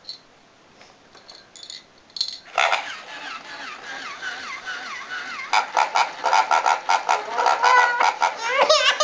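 Battery-operated plush walking pig toy running: its motor and gears click rapidly while it plays repeated electronic oinking squeals.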